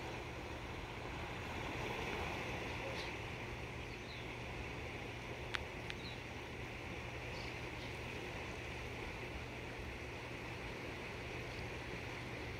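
Steady rushing outdoor background noise with a faint low hum beneath it, and a couple of faint clicks about halfway through.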